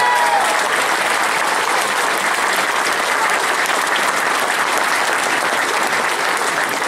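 Crowd applauding, a dense, steady clapping that holds throughout and eases slightly near the end.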